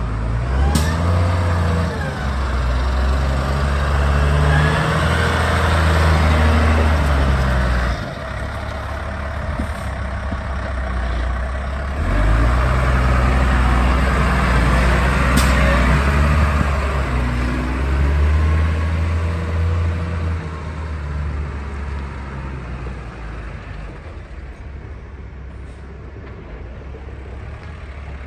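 2006 Case IH MXU 115 tractor's diesel engine running as the tractor is driven, its revs rising and falling. Loud through two long stretches with a dip between them, easing off toward the end, with two sharp clicks, one near the start and one about halfway.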